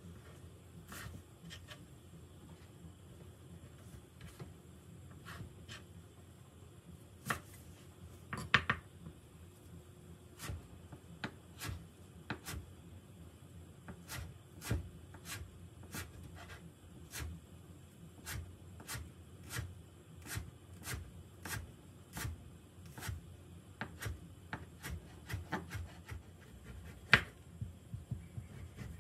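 Chef's knife chopping chives on a wooden cutting board: a run of light knocks of the blade against the board, sparse at first, then about two a second. Near the end the knife slices through chorizo on the same board.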